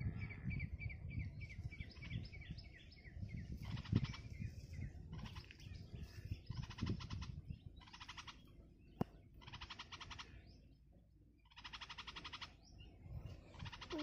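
Songbird nestlings begging in the nest: first a quick run of short high chirps, about four a second, then harsh buzzy calls repeated in bursts of half a second to a second. A low rumble sits underneath, with a single click about nine seconds in.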